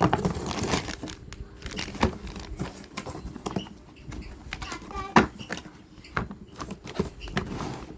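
Printer packaging and accessories being handled: plastic and cardboard rustling with many small knocks and clicks.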